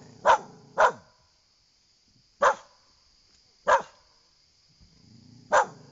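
A dog barking five times: two quick barks close together, then three single barks spaced one to two seconds apart.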